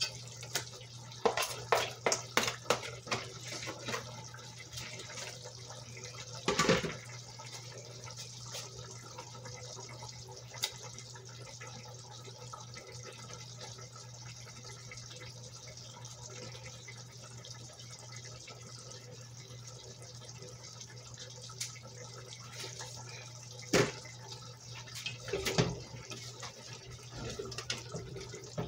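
Chicken drumsticks simmering in a pot, a steady bubbling hiss over a low hum. A metal spoon clinks and scrapes against the pot in a quick run in the first few seconds, once loudly about seven seconds in, and a few times near the end.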